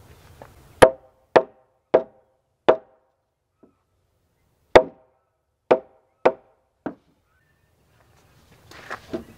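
Hammer blows on the end of a hewn log floor joist, knocking it into its pocket in the sill log: four sharp knocks a little over half a second apart, a pause of about two seconds, then four more. Each knock has a short, hollow woody ring.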